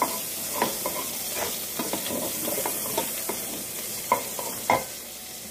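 Sausage sizzling as it fries in its own rendered fat in a pot, with a steady hiss. A utensil knocks and scrapes against the pot at irregular moments as the sausage is stirred.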